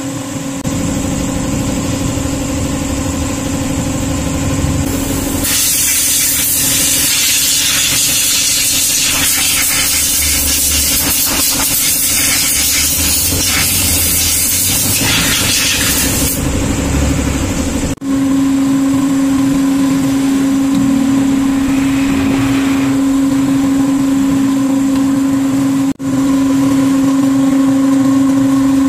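Compressed air blasting from an air hose into the open CVT case of a scooter, a loud, even hiss that starts about five seconds in and stops after roughly eleven seconds. A steady low hum runs underneath throughout.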